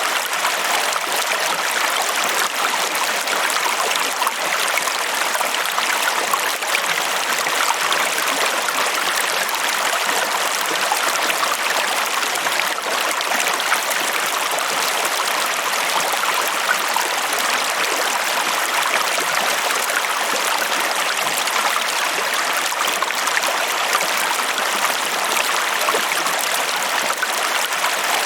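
Running water flowing steadily: an even, unbroken rush and splash, bright and with almost no bass.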